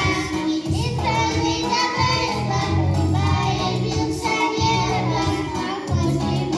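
Young girls singing a children's song together into microphones over a recorded backing track with a steady bass line, played through the hall's PA speakers.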